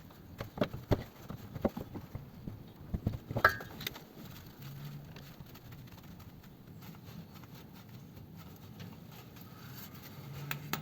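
Irregular metal clinks and knocks of hand tools, bolt and bracket during work on a car's gearbox rear mount, most of them in the first four seconds. A faint low hum follows.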